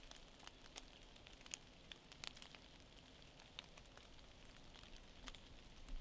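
Near silence in a dripping wet forest: faint scattered ticks of water drops falling onto dead leaves.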